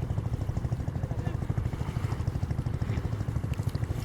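A small engine running steadily, its low, even pulsing beat unchanged throughout.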